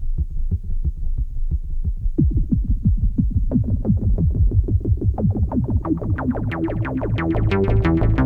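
Access Virus B synthesizer playing a fast repeating sequenced pattern over a low bass. The sound brightens steadily as its filter opens, from a dull low pattern to a bright, buzzy one near the end.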